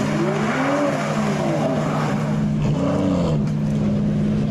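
Aston Martin DB11 engine revving up and dropping back twice as the car pulls away, over a steady low engine drone.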